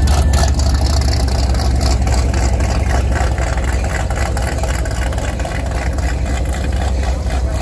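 Chevrolet C7 Corvette's V8 running at low revs as the car pulls away slowly, a steady deep engine note that grows slightly fainter.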